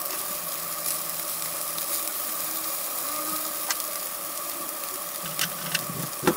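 Pork belly chunks sizzling as they brown in a frying pan, with a steady faint tone running underneath. A few sharp clicks come near the end.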